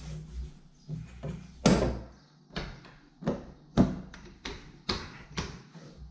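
Rolling pin knocking and bumping on a kitchen worktop as brioche dough is rolled out: about ten irregular knocks, the loudest about a second and a half in.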